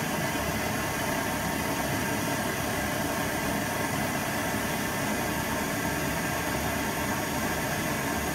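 Steady mechanical hum with a hiss, even in level throughout.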